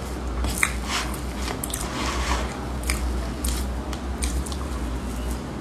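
Close-miked eating of soft, dense Basque cheesecake: chewing with irregular short mouth clicks, and a metal spoon scooping into the cake.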